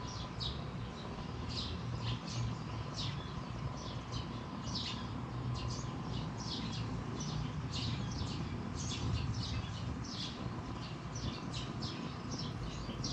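Small birds chirping in a quick, steady string of short falling chirps, over a low background rumble.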